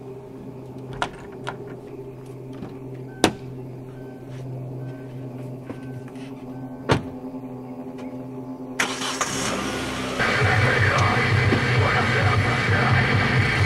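A Hyundai sedan's door-open warning chime beeps about every 0.7 s, and a door shuts with a sharp clunk about seven seconds in. About nine seconds in the car's engine starts, and a second later a much louder, steady sound takes over. A low drone runs under it all.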